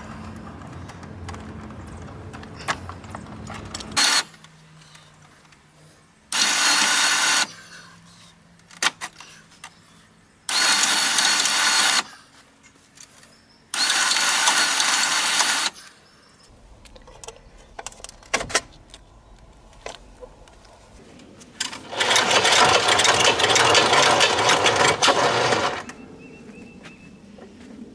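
Power tool run in four bursts, the last the longest at about four seconds, with light clicks and knocks of handling between them: bolts being run out to remove the ATV winch's fairlead.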